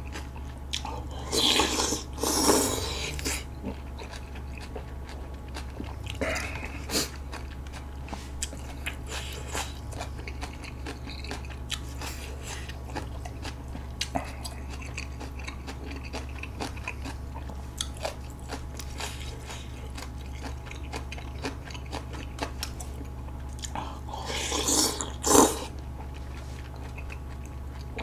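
Close-miked eating of budae-jjigae: wet chewing and biting with many small mouth clicks. Two louder noodle slurps come about two seconds in and near the end, over a steady low hum.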